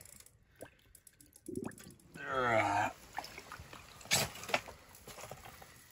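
A short wordless vocal sound, then two sharp splashes about four seconds in as a lake trout is lifted out of a hole in the ice.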